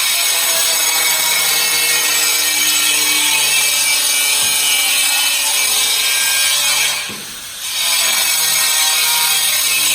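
Electric power saw cutting steadily with a high, hissing whine. It stops for under a second about seven seconds in, then cuts again.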